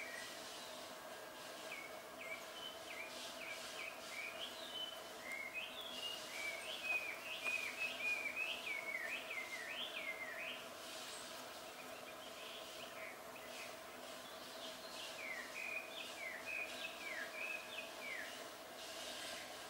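Male Japanese thrush singing: runs of quick, short whistled notes, in two bouts with a brief lull in the middle. The observer takes the song as the father urging the nestlings to fledge.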